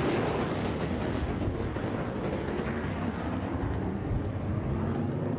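Military jet aircraft roaring past low overhead, a steady rushing noise that slowly dulls as it moves away.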